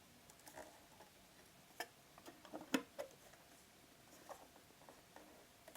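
Faint handling noise: scattered small clicks and taps as the watch winder and its cushion are handled, the sharpest a little under three seconds in.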